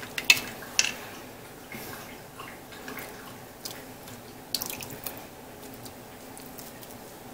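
A plastic spoon stirring and scooping beef stew in the stainless steel inner pot of an Instant Pot, with liquid sloshing and dripping from the spoon. A few sharp clicks of the spoon against the pot stand out: the loudest comes near the start and a small cluster comes about halfway.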